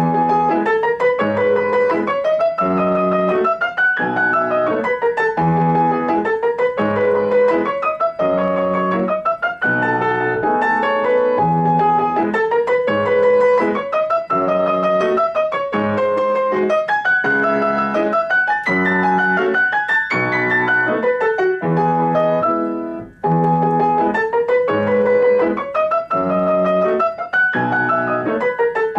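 Solo grand piano playing a fast étude: quick running notes in evenly repeated figures that rise and fall, with a brief break about two-thirds of the way through before the figures resume.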